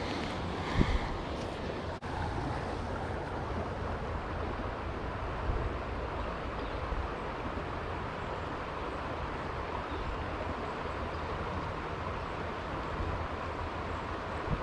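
Steady rush of flowing stream water, with a short splash about a second in.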